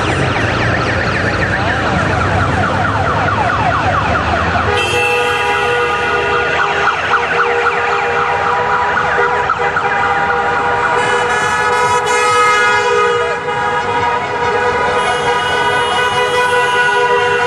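A procession of touring motorcycles passing with their horns going: for the first five seconds a dense tangle of many rising and falling tones, then from about five seconds in several horns held steady together over the engines.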